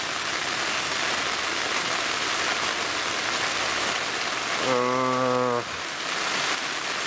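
Heavy rain falling on the fabric of a Coleman Cimarron dome tent, heard from inside as a steady hiss: a downpour. About five seconds in, a man's voice gives a short, low, held hum.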